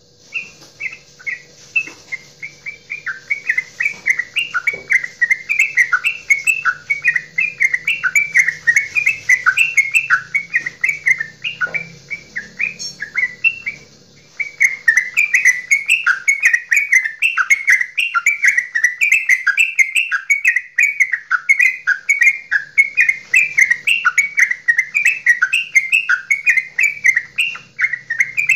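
Yellow-vented bulbul (trucukan) singing its long, fast, bubbling 'goklikan' song, a continuous run of quick chattering notes, broken once by a short pause about fourteen seconds in before it carries on.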